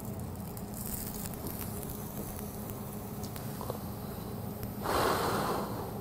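Faint crackling of a charcoal grill fire with scattered small pops. About five seconds in comes a short breathy puff lasting about a second: a man blowing on a hot piece of grilled beef tongue to cool it.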